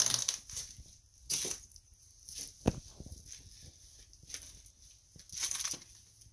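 Irregular footsteps crunching on debris, with a sharp knock near the middle.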